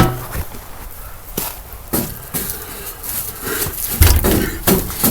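Knocks and a heavy thump about four seconds in, from a person kicking at a stuck ceiling fan to try to get it to spin.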